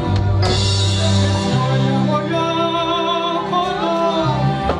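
Live gospel music: a singer holding wavering notes over instrumental accompaniment with a deep bass line.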